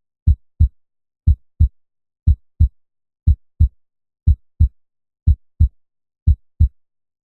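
Human heartbeat sound effect at 60 beats per minute: a pair of low lub-dub thumps once a second, seven beats in all, with silence between.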